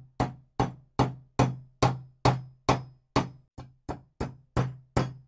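Brass hammer tapping alignment dowels into a Stihl MS 660 chainsaw crankcase half: a steady series of light taps, about two to three a second, each with a short low ring. The dowels are set to protrude only slightly, just enough for the gasket to hang on them.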